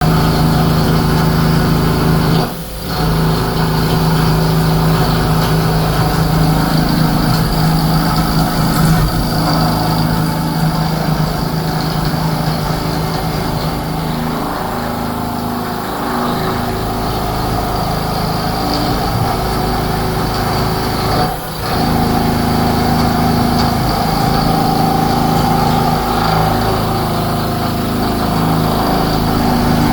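CNC vertical machining centre running: a steady machine hum made of several tones that shift in pitch now and then, with the sound dipping briefly twice.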